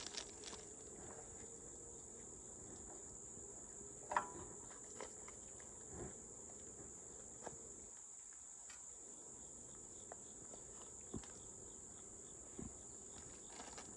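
Insects chirring in a steady high drone, with a few faint clicks and knocks of hands working at the opened hydraulic hose fitting, the loudest about four seconds in.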